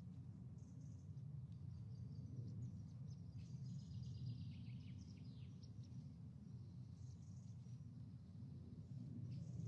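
Faint birdsong, high chirps and twittering trills, over a steady low background hum outdoors.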